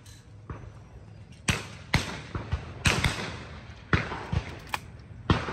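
Several shotgun shots on a sporting clays course, not very loud. Some come as quick pairs about half a second apart, and each is followed by a short echo.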